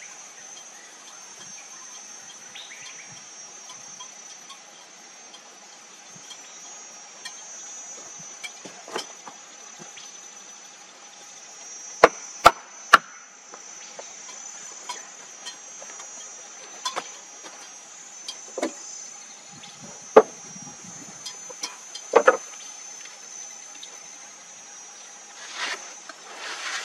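Insects chirring steadily and high, with sharp knocks over them: three loud ones in quick succession about halfway through, then several more, spaced a second or two apart.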